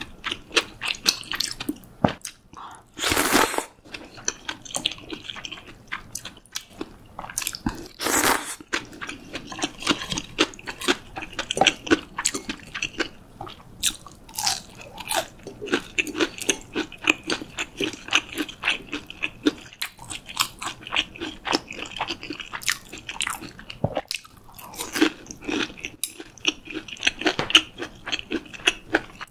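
Close-miked eating sounds: two loud, long slurps of cold buckwheat soba noodles in the first several seconds, then crunching bites and chewing of crispy breaded fried pork cutlet, with dense crackly clicks throughout.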